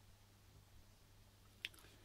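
Near silence: room tone with a faint steady low hum, and one short click near the end.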